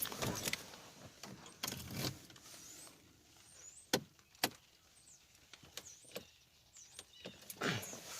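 A few separate sharp clicks and knocks from a 2007 Pontiac G6 being tried, with no cranking or engine sound at all: the car will not start, its battery dead and no power reaching it.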